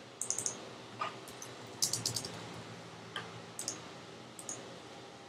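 Computer keyboard being typed on: short irregular runs of key clicks with pauses between them.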